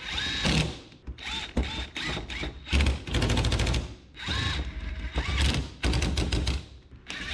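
DeWalt 20V cordless driver running the screws into the top of a carburetor being reassembled, in about six short bursts of rapid clattering with pauses between them.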